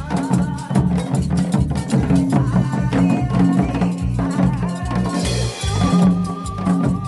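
Janggu drumming in a quick, steady rhythm, played along with music that has a bass line and melody.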